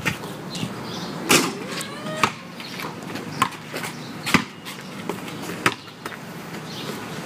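A basketball bouncing on a concrete driveway and striking the hoop: about eight sharp bangs, unevenly spaced.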